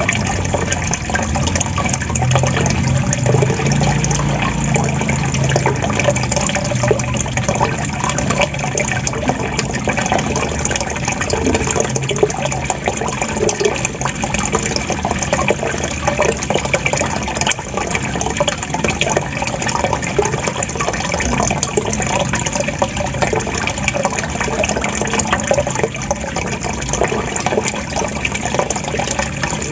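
Waterfall water gurgling and splashing steadily.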